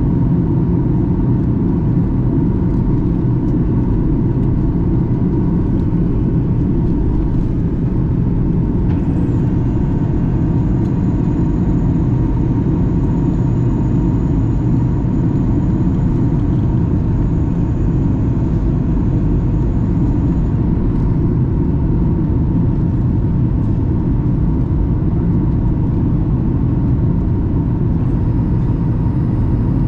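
Boeing 737-800 cabin noise at a window seat in flight: a steady, even rumble of airflow and engines, with a faint high thin whine joining about nine seconds in and fading about twenty seconds in.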